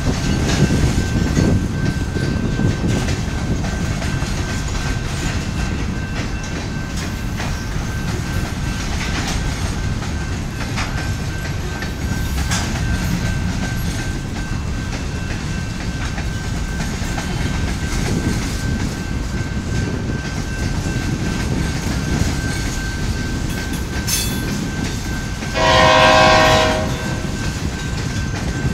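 Covered hopper cars of a Canadian Pacific freight train rolling past in a steady rumble, with a few wheel clacks and a thin steady whine. Near the end a horn sounds once, for about a second.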